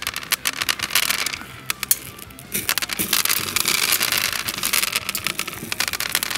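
Plastic airsoft BBs crackling and clicking against a hot metal ball pressed into a glass bowl of them, the separate clicks thickening into a dense sizzle for about three seconds in the middle. Faint background music underneath.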